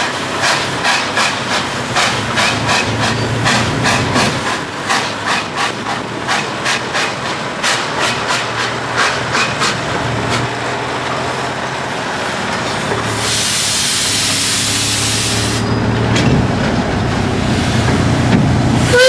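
Two doubleheaded steam locomotives, a small 1924 H.K. Porter coal-burner and a larger engine, working hard under heavy throttle with quick, regular exhaust chuffs from their stacks. The chuffing fades about twelve seconds in, a loud hiss of escaping steam follows for about three seconds, and then the low running noise of the engines remains.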